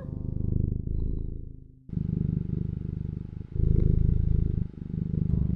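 Domestic cat purring close and loud, a fast low rumble that comes in stretches of a second or two, dipping briefly between breaths.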